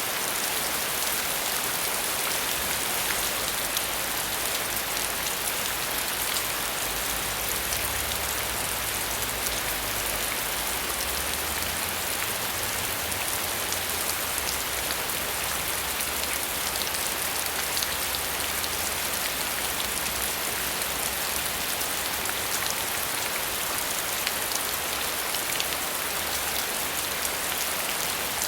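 Steady heavy rain falling, a dense even hiss with many small drops ticking through it.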